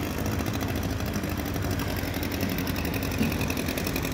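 Small antique outboard motor running steadily at low speed, a low hum with a fast, even rattle above it.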